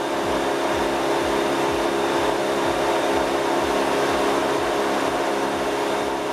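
Homemade Herkules 16-cylinder inline engine, built from four Volvo B20 engine blocks, running steadily with an even hum.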